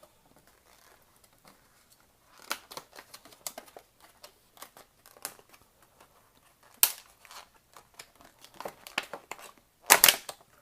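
Packaging being opened by hand to take out a pair of crimping pliers: scattered rustling, crinkling and small clicks, with a sharp snap about seven seconds in and a louder crackling burst near the end.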